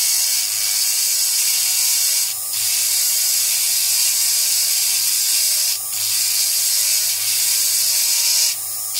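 Rotary carving tool with a small cylindrical bit grinding wet fire agate: a steady high grinding hiss with a faint motor hum beneath. The hiss breaks off briefly three times as the bit leaves the stone.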